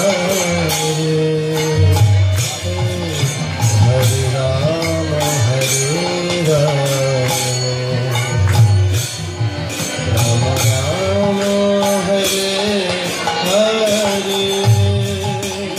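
Devotional chanting music: a sung, gliding melody over a steady beat of jingling hand percussion.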